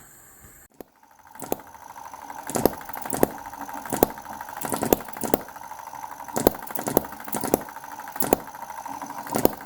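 Small model hit-and-miss gas engine running, firing with sharp pops at uneven intervals of about half a second to a second over a steady light mechanical clatter.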